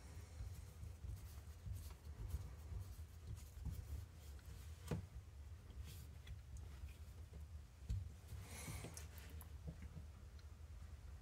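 Faint clicks and light scraping of small screws and plastic parts being handled and fitted while an RC truck's front differential is reassembled, with one sharper click about five seconds in and a short rustle near the eight-second mark.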